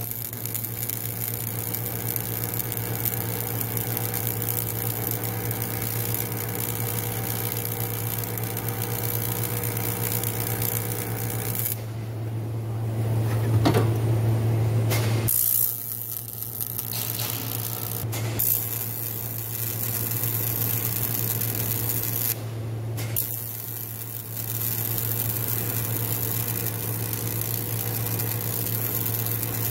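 Electric welding arc hissing and crackling in long runs on an aluminium boat hull, over a steady electrical hum from the welder. The arc stops for about three seconds roughly twelve seconds in, and again briefly twice later.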